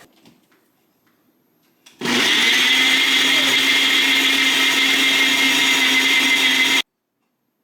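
Electric kitchen mixer running at a steady speed, beating the sugar mixture for a sponge cake until it is light and pale. It starts about two seconds in, runs for nearly five seconds with a steady hum, and cuts off suddenly.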